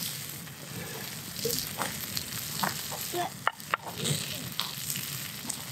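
Meat sizzling on a grate over a wood campfire, with fat dripping into the flames and scattered sharp crackles and pops; the two loudest pops come about three and a half seconds in.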